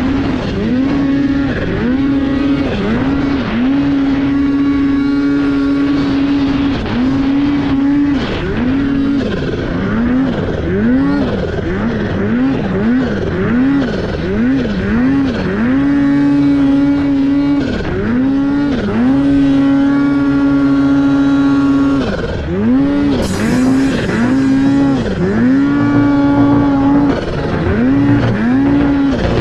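Snowmobile engine revving hard in deep powder, the throttle chopped and reopened over and over so the revs dip and swoop back up, in quick runs of about two a second between stretches held steady at high revs.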